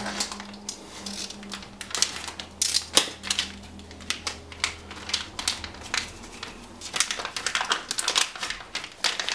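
Plastic and anti-static parts bags crinkling and rustling as hands pick them up and move them, with irregular sharp crackles.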